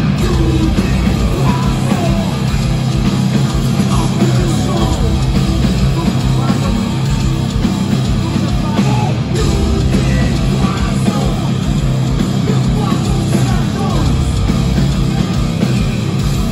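Metal band playing live at full volume, with loud electric guitars, heavy drums and vocals, heard from the crowd.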